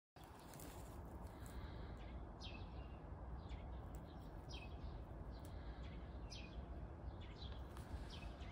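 A bird chirping repeatedly outdoors: short falling chirps about once a second over a steady low background rumble.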